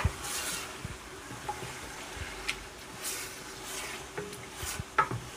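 Wooden spoon stirring tomato and pepper paste in hot oil in an aluminium pot: a soft frying sizzle with scraping stirring strokes and a couple of sharp clicks as the spoon meets the pot.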